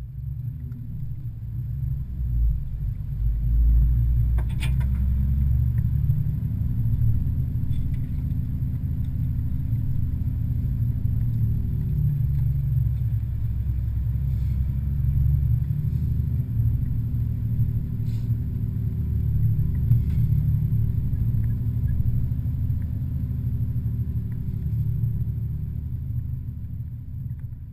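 Four-wheel drive driving along a dirt track, heard from inside the cab: a steady low rumble of engine and tyres, with a sharp knock about four and a half seconds in and a few lighter rattles later.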